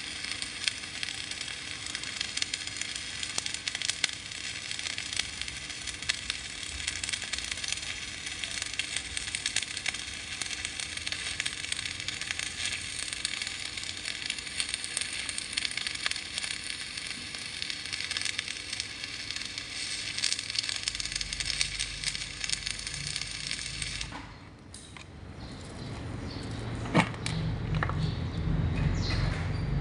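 Electric arc welding on steel: a steady crackle and sizzle of the arc with a dense patter of fine pops. About 24 seconds in the arc stops abruptly, leaving a low rumble and a few sharp clicks.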